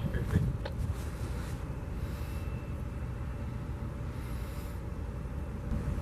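Steady low rumble of distant ship and tug engines and port machinery carried across the water, with a few faint knocks about half a second in.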